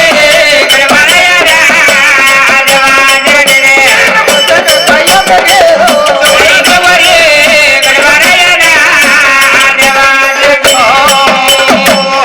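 Marathi devotional folk singing: a singer's wavering, ornamented melody over a steady held drone note, with quick percussion strikes throughout.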